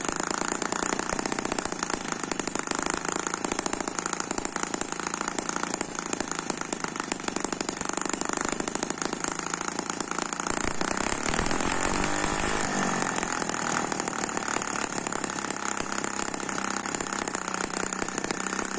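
Eachine ET5S twin-cylinder model gasoline engine running steadily with rapid firing, while its carburetor needle is being adjusted. Its pitch wavers for a couple of seconds about eleven seconds in, then settles.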